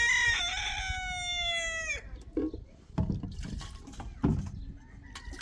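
A rooster crowing: one long call that falls in pitch at the end and stops about two seconds in. Two dull thuds follow.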